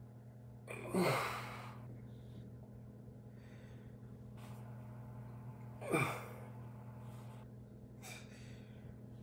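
A man's loud, breathy exhales of effort while doing sit-ups, two of them about five seconds apart, each falling in pitch, with quieter breaths between. A steady low hum runs underneath.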